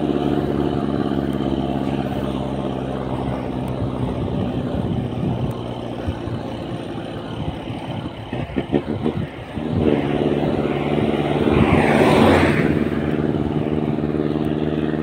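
A motor vehicle's engine running steadily. It wavers and drops about eight seconds in, picks up again about ten seconds in, and a brief rush of noise comes near the twelve-second mark.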